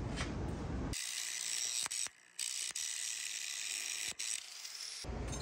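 Angle grinder grinding cracks out of a forged steel Damascus billet: a hissing grind cut into short clips, with a brief break about two seconds in. The first second is a lower, rumbling shop noise.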